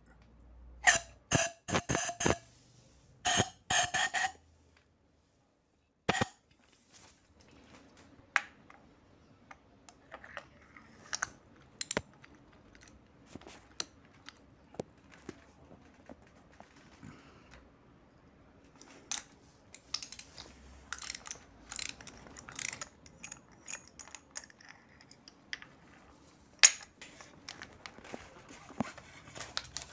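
Metal hand tools clinking and clicking against a motorcycle engine's spark plug well as a spark plug socket and extension are fitted and turned. Several loud ringing metal clanks come in the first few seconds, then scattered lighter clicks over a faint steady hum.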